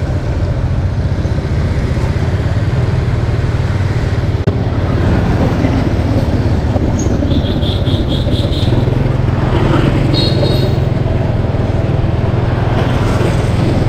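Motorbike riding along a street: the steady low drone of the engine and road noise from the moving bike, with a brief quick high beeping twice midway.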